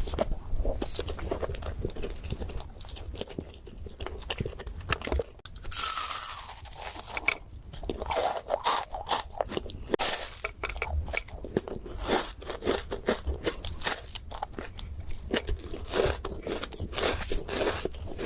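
Close-miked eating of desserts: irregular crunching and chewing, with louder crackling crunches about six and ten seconds in.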